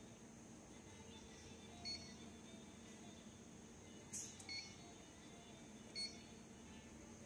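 Fuji Electric touch HMI panel's buzzer giving three short high beeps as its screen buttons are touched, with a sharp click just before the second beep.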